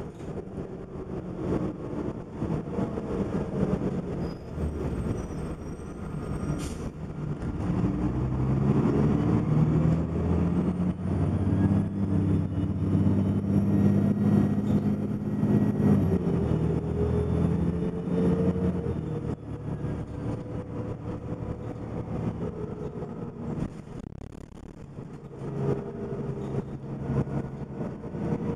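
A 1998 New Flyer D30LF transit bus's diesel engine heard from inside the cabin while under way: its note climbs and grows louder as the bus pulls away, holds, then drops back and quietens for the rest of the ride. A faint high whine rises and falls over the loud stretch, and there is one sharp click about seven seconds in.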